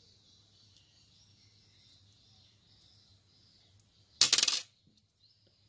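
Small polished tumbled crystal stones clicking against each other in a cupped hand: one quick rattle of many small clicks about four seconds in, lasting under half a second.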